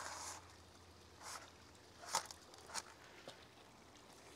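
Faint handling noise from a wired meat-thermometer probe being pushed through the aluminium foil wrap and its cable arranged: a few soft rustles and light clicks, the clearest about halfway through, over a faint low hum.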